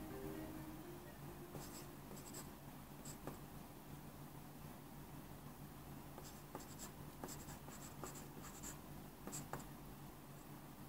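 Pencil scratching on paper: a few short strokes about two seconds in, then a busier run of quick strokes as letters are written, over a faint steady low hum.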